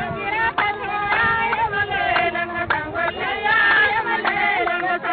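Sudanese jarari folk singing: voices singing with sharp claps or beats repeated through it.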